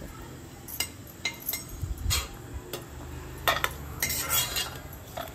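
Stainless-steel slotted skimmer clinking and scraping against a steel pot and a steel plate as roasted cashew pieces are scooped out of ghee and tipped onto the plate: a string of separate sharp clinks, with a short scrape about two seconds in.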